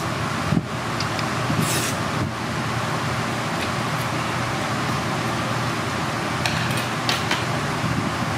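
Steady low hum and hiss of background noise, broken by a few short, sharp hissing sounds, one about two seconds in and a couple near the end.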